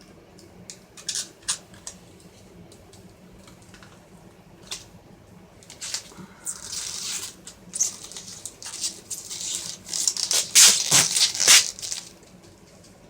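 Protective plastic film being peeled off a replacement touchscreen: a few light clicks, then crackling tearing noises from about halfway in, loudest near the end.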